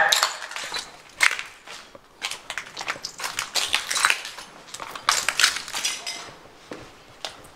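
A run of irregular crunches and knocks, one short sharp noise after another.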